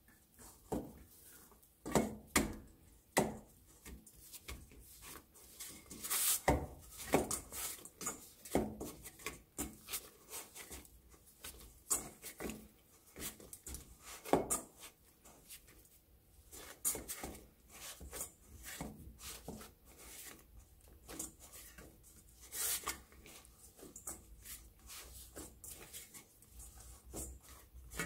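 Bread dough being knocked back and kneaded by hand in a stainless-steel bowl: irregular knocks and slaps of hand and dough against the metal, with rubbing and squishing in between.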